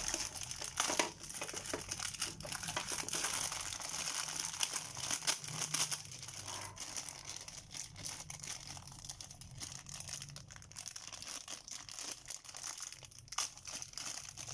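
Clear plastic packaging bags crinkling and rustling as hands handle the Beyblade launcher and parts sealed inside them, with many small crackles. Busier in the first half, then softer.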